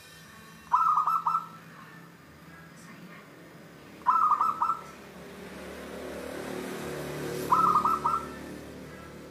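Zebra dove (perkutut) cooing: three short phrases, each a quick run of four or five clipped notes, spaced about three seconds apart.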